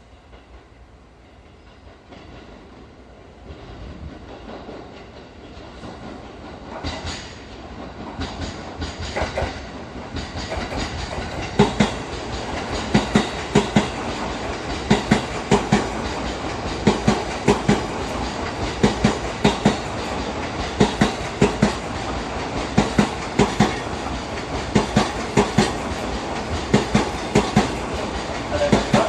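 A train approaching and running past close by, getting steadily louder for about ten seconds. After that its wheels clatter over the rail joints in an even clickety-clack of paired knocks.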